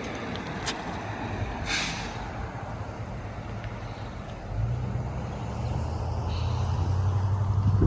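A heavy vehicle's engine, a steady low hum that starts about halfway through and grows louder toward the end. A short hiss comes about two seconds in.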